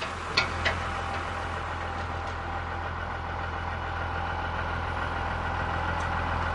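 Engine idling with a steady, even low hum, with a couple of light clicks in the first second.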